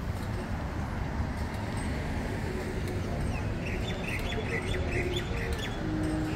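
A small bird chirping in a quick run of short high calls about halfway through, over a steady bed of street traffic noise.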